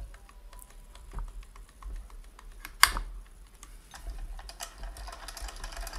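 Singer 401A sewing machine's internal gears and linkages turned by hand at the handwheel, giving a run of small metallic clicks and clacks, with one sharp, loud clack a little before halfway and busier clicking near the end. The mechanism, stiff from years without oil, is working free under fresh Tri-Flow oil.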